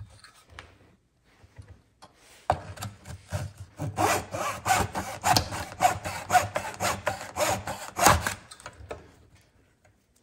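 Fine-toothed razor saw cutting through a small square strip of wood in a cutting jig's slot: quick back-and-forth strokes start about two and a half seconds in and stop a couple of seconds before the end, the last stroke the loudest as the piece is cut through.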